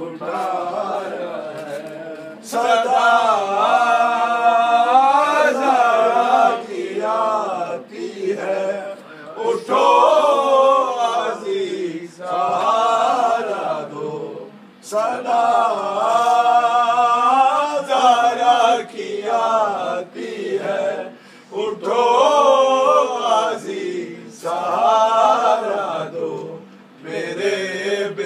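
Male voice reciting a noha, a mournful Urdu elegy chanted unaccompanied in long melodic phrases of a few seconds each, with short breaks for breath between them.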